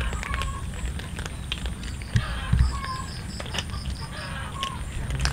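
A group of cats crunching dry kibble: many small irregular clicks and crackles of chewing. Two low thumps sound near the middle, with short high pips repeating in the background.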